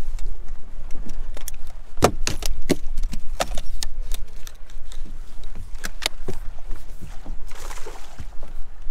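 Wind rumbling on the microphone on a bass boat's deck, over a run of sharp knocks and rattles as the landing net is handled. A brief splashy rush comes near the end as the net is dipped over the side.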